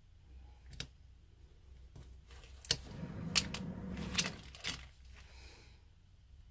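Samsung Galaxy J3 (2017) phone being pried apart by hand: a handful of sharp plastic clicks and snaps with scraping and rustling between them, busiest in the middle, as the frame's clips come loose from the back housing.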